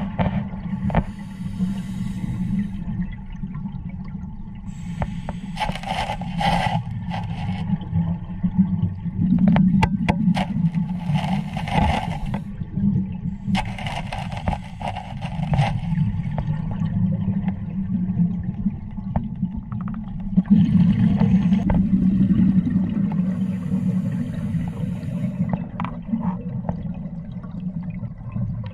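Underwater sound of a scuba diver's regulator breathing: a steady low rumble, with a rush of exhaled bubbles every four or five seconds.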